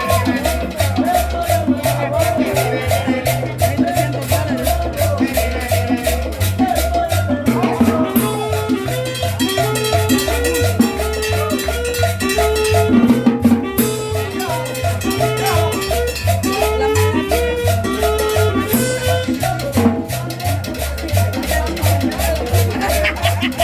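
Salsa-style tropical dance music with a driving repeating bass line and steady percussion.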